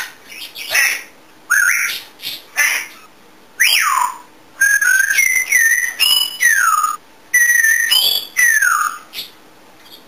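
African grey parrot whistling a rapid string of short whistles: some slide down in pitch, others hold a single note, with short gaps between them.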